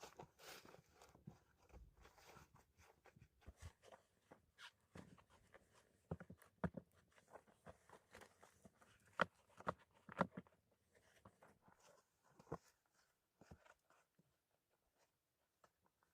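Faint, scattered clicks, small knocks and rustles of close-up handling, irregular, with a few sharper ticks in the middle.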